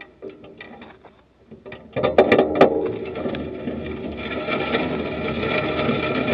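Bicycle rolling over a dirt-and-gravel path, its tyres crunching and the bike rattling, with a few sharp knocks. It starts quiet with scattered clicks and gets suddenly much louder about two seconds in, as the bike picks up speed.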